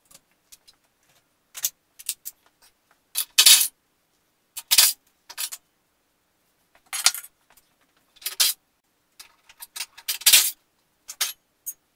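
Metal tools and parts clinking and clattering as they are handled, a run of irregular sharp clanks with several louder knocks among them.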